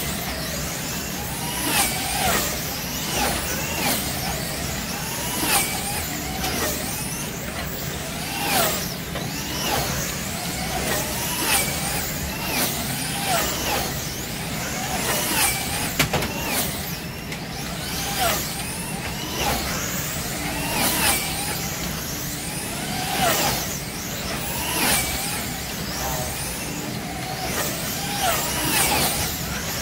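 Electric motors of wing-class slot cars whining as they lap the track. Each car gives a rising-then-falling whine as it passes, about one pass every second or so.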